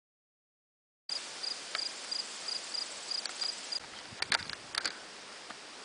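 Silent for about a second, then outdoor woodland ambience with a cricket chirping steadily, about three high chirps a second, which stops about four seconds in. A few short clicks follow.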